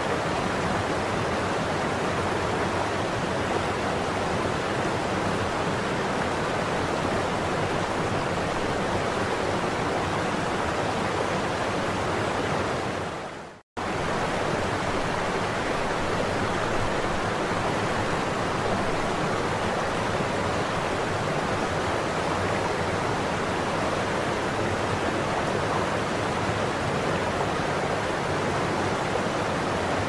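Steady rush of a waterfall and shallow river rapids: an even hiss of water with no distinct splashes. About thirteen seconds in it fades out to silence and then cuts straight back in.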